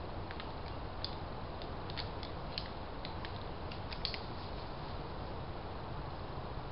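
Two whitetail bucks sparring: a scatter of light, irregular clicks and ticks for the first four seconds or so, which then stop, over a steady hiss from the trail camera.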